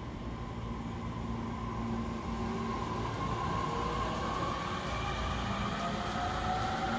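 E231-series electric commuter train pulling out and accelerating: the traction motors' whine climbs steadily in pitch and grows louder over a low running rumble.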